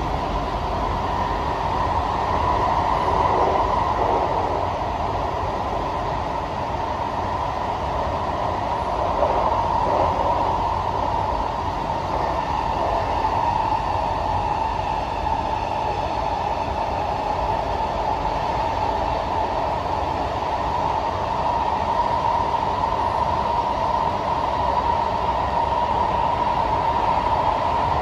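SMRT C151A electric train (Kawasaki/CSR Sifang, Fuji Electric IGBT-VVVF drive) running along the line, heard on board as a steady rumble and rail noise. A faint high whine joins in about halfway through.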